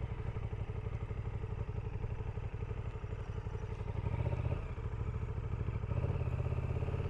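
KTM 1290 Super Duke GT's V-twin engine running at low revs, picking up briefly about four seconds in and again about six seconds in as the bike pulls away.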